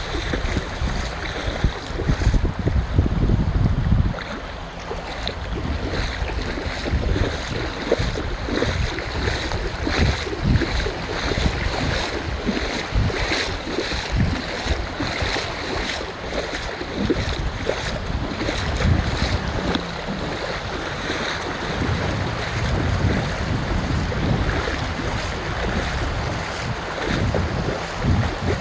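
Surf washing on a beach, with wind buffeting the microphone in gusts, strongest about two to four seconds in.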